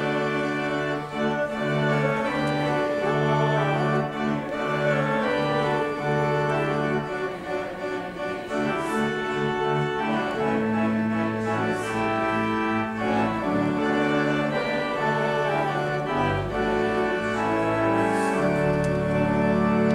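Church organ playing a slow piece in sustained, changing chords, closing on a long held chord near the end.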